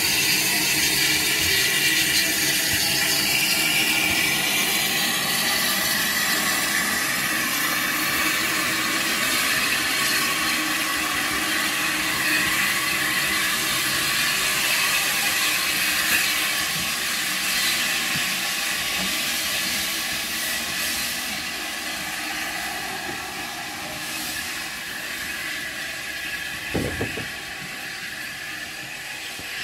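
Steam hissing from an 1893 LSWR T3 class 4-4-0 steam locomotive. The hiss is steady and slowly fades as the engine draws away, with a short low thump near the end.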